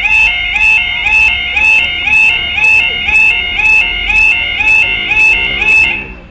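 Railway level crossing audible warning alarm sounding its yelping tone, a rising sweep repeated about twice a second, which cuts off about six seconds in.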